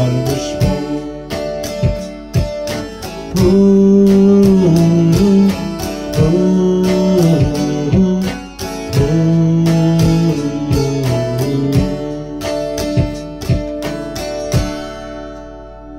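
Acoustic guitar strummed through the closing bars of a song, with long held notes over the strums, dying away near the end.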